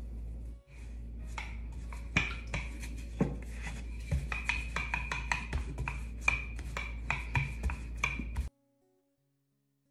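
Wooden rolling pin rolling out laminated Danish pastry dough on a stone worktop, pushed back and forth with repeated knocks and clacks. The sound cuts off suddenly about eight and a half seconds in.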